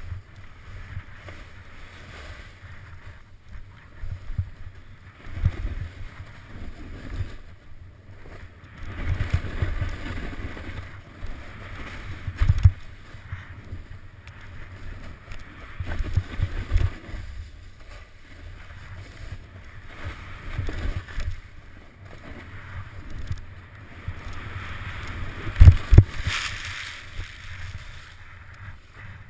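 Snowboard sliding through snow, its base and edges hissing and scraping in swells that come and go with the turns, over a low rumble with repeated knocks and thumps as the board rides over bumps. The loudest thump comes near the end.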